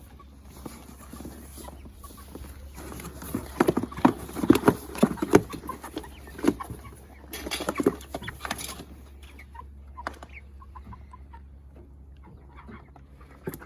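Young meat chickens clucking, busiest in the middle few seconds with a quick run of short, sharp calls and sounds.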